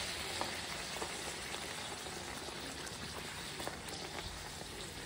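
Bhatura deep-frying in hot oil in a steel kadai: a steady sizzle and bubbling, easing slightly, with a few faint ticks.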